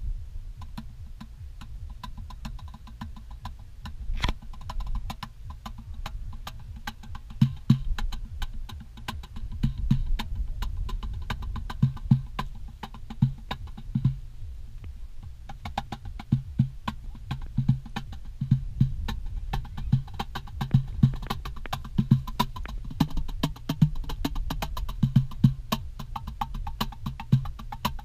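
Cajon played solo with the hands: a fast run of light slaps and taps on the front plate, with deep bass strokes coming in about seven seconds in and recurring through the rest of the groove.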